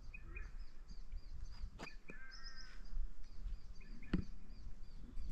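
Small birds chirping over and over, with one longer call about two seconds in, over a low rumble of wind on the microphone. There are two sharp knocks, at about two seconds and four seconds in.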